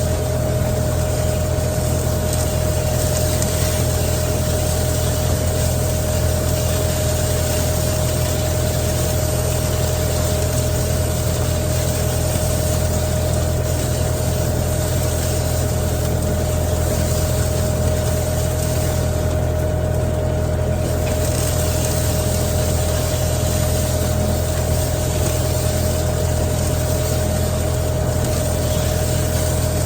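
Engine of the vehicle pulling a Field Tuff seed drill, running steadily at constant speed: an even low drone with a steady whine above it.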